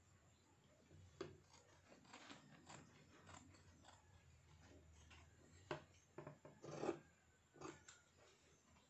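Tailor's shears cutting through a paper pattern and the fabric beneath it, a faint series of short snips and paper rustles, louder near the end.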